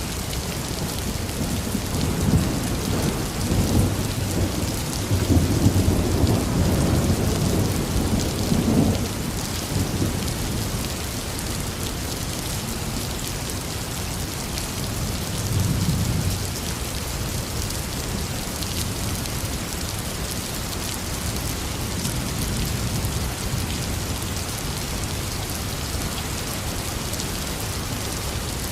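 Heavy rain falling steadily, with a long low rumble of thunder swelling and fading in the first third and a shorter, fainter rumble about halfway through.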